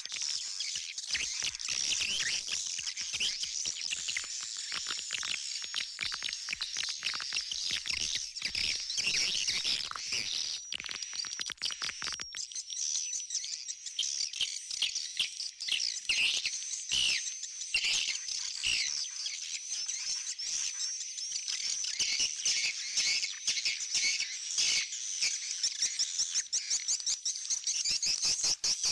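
Recorded swiftlet calls played back as a swiftlet-house lure: an old-style ('jadul') swiftlet call track layered with a call-and-roost ('panggil inap') track, giving a dense, rapid high chirping and twittering.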